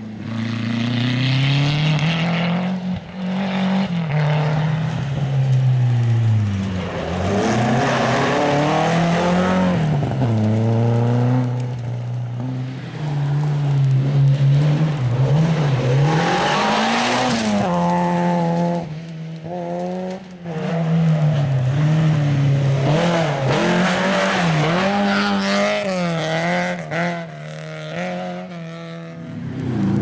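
Rally car engines revving hard on a gravel stage, the pitch climbing and dropping again and again with gear changes and lifts off the throttle, with tyre noise on the loose gravel.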